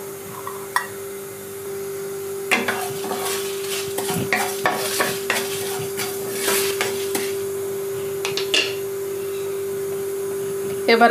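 Wooden spatula stirring whole cumin, coriander seeds and dried red chillies dry-roasting in a non-stick kadai: irregular scraping and rattling from about two and a half seconds in until about eight and a half seconds, over a steady low hum.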